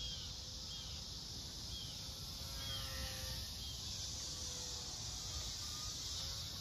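Faint whine of a small electric RC plane motor, wavering up and down in pitch, over a steady hiss of insects and low wind rumble on the microphone.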